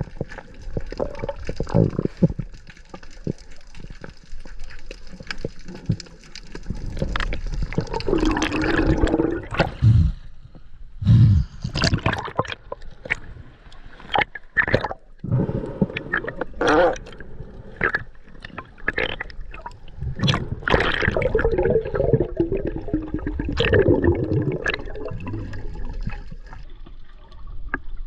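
Water sloshing and gurgling around a snorkeller's camera, with many sharp knocks and two louder stretches of bubbling.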